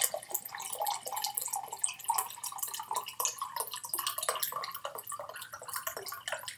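Water glugging and splashing as it pours from the neck of a glass whisky bottle into a drinking glass, in quick irregular gulps.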